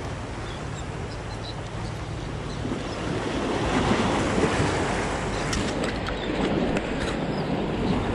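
Sea surf washing against the concrete tetrapods of a breakwater, with wind buffeting the microphone; the surf swells louder about three seconds in.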